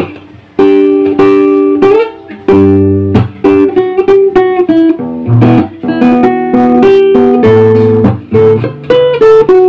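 Acoustic-electric guitar played through a small Aria guitar amplifier: a loud, fast picked melody with chords, many sharply plucked notes and a few short slides up in pitch. The amp is working on its replacement 220 V transformer.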